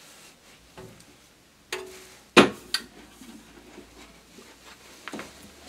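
Hinged wheel covers of a bench-top bandsaw being swung shut and latched: a few light clicks and knocks, with one sharp snap about two and a half seconds in.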